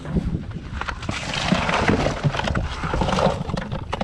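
Bucketful of freshly caught hassa and tilapia tipped into a plastic cooler: a sliding, clattering rush of wet fish for about two seconds, with wind rumbling on the microphone.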